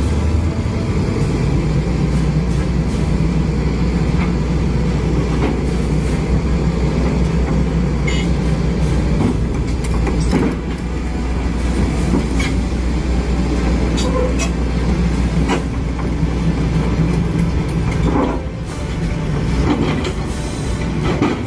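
Steady low mechanical rumble of a heavy engine running, with occasional clicks and knocks. It dips briefly about halfway through and again near the end.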